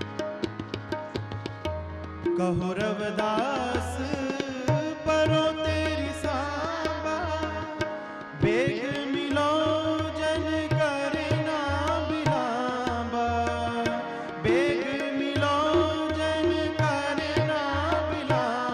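Indian-style music: a steady tabla beat under an ornamented, wavering sung melody, which comes in about two seconds in and pauses briefly twice.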